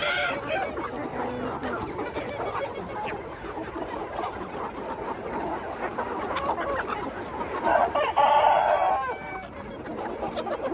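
A flock of free-range chickens clucking continuously, with a rooster crowing once, loudly, about eight seconds in.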